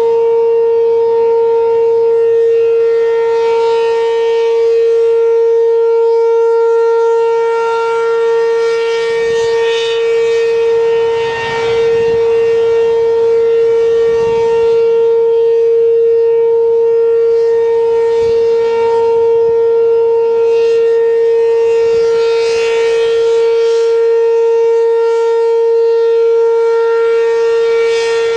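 ACA P-15 outdoor warning siren sounding the steady alert signal: one loud, unchanging pitch with strong overtones, its sound swelling and fading every several seconds.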